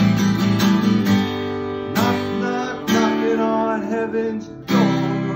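Acoustic guitar strummed in chords, with hard strums about two seconds, three seconds and nearly five seconds in, and the chords ringing on between them.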